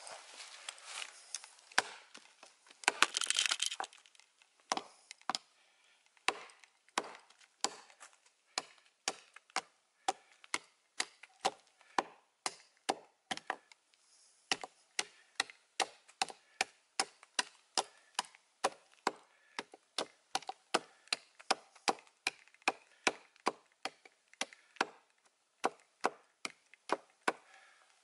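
Steel multi-tool hatchet chopping into wood, short sharp blows at a steady rate of about two a second. At first there is rustling in dry leaves, with a louder burst about three seconds in.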